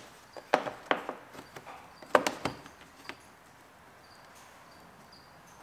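A few light knocks and clicks, spread over the first three seconds, then faint background.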